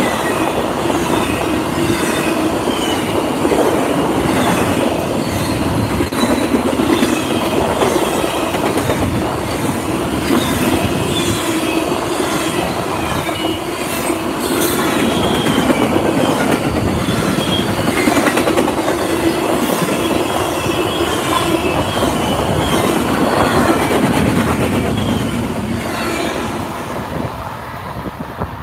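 Double-stack container freight train rolling past close by: steady rumble and clatter of wheels on rail, with short high wheel squeals. Near the end the last car passes and the sound falls away.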